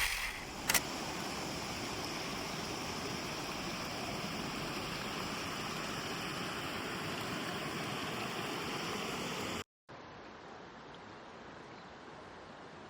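Steady rushing outdoor noise with a single sharp click under a second in. About ten seconds in it cuts off abruptly and resumes quieter and duller.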